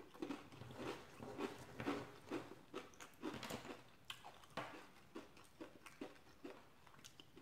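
A person chewing a mouthful of Fritos corn chip and chili close to the microphone, about two chews a second, dying away about six seconds in.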